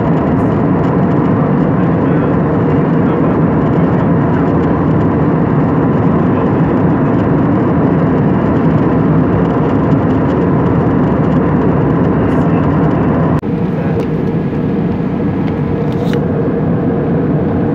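Steady cabin noise of an Airbus A320 airliner in flight: the even rush of airflow and jet engines heard from a window seat, with a faint steady hum under it. About thirteen seconds in the noise dips for an instant and carries on with a slightly different tone.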